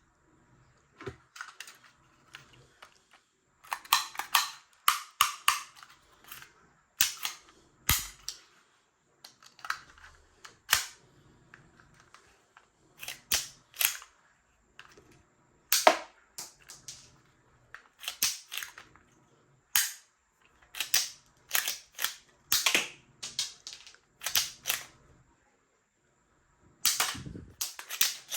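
Toy guns being cocked and fired over and over: sharp clicks and snaps at irregular intervals, often several in quick succession.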